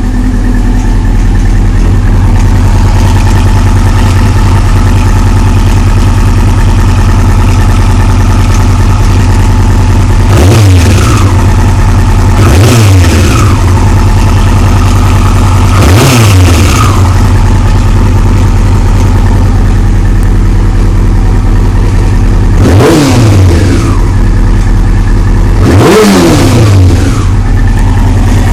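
2001 Yamaha YZF-R6's inline-four engine idling steadily, blipped five times with short throttle revs that rise and fall quickly. The owner reports a slight ticking that comes and goes and a little rattle on the gas.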